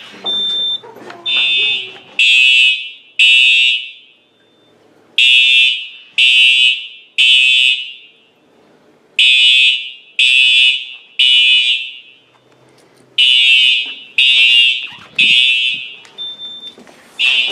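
Fire alarm horns sounding in the temporal-three evacuation pattern: three loud blasts about a second apart, then a short pause, repeating, after a manual call point has been activated. A brief higher beep sounds once near the start and once near the end.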